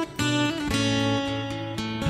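Background music: a guitar playing a run of held chords.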